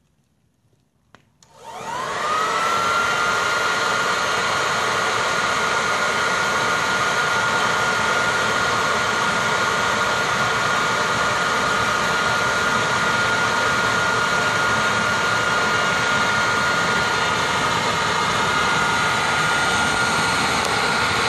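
Corded electric leaf blower switched on about a second and a half in: its motor spins up with a rising whine, then runs steadily with one high whine over a rush of air as it blows into a wood fire.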